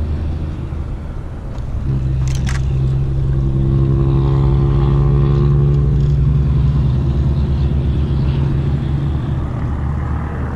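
A steady engine drone that grows louder about two seconds in and eases off near the end, with a couple of sharp clicks about two seconds in.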